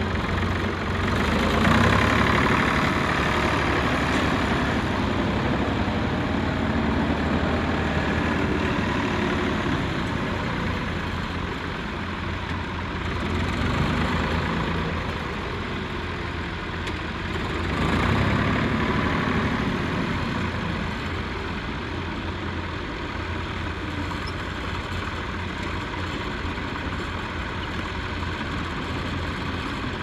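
Farm tractor engines running while pulling ploughs through the field, a steady low drone that swells louder a few times.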